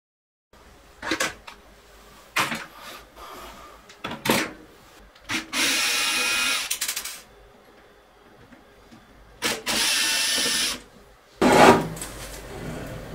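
An electric screwdriver runs in two bursts of about a second and a half each, backing out the rear-panel screws of a Blu-ray player's metal case. A few knocks of handling come between them, and a loud scraping clatter near the end as the metal top cover is slid off.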